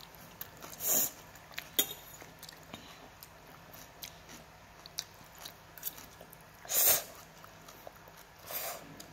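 A child eating spicy instant noodles: short breathy slurps of noodles, about a second in and twice near the end, the loudest a little before the end, with scattered small clicks and chewing in between.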